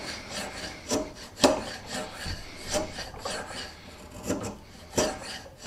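Homemade curved Japanese saya chisel pushed by hand along padauk, paring the wood in repeated scraping strokes, several of them sharper, about a second or so apart.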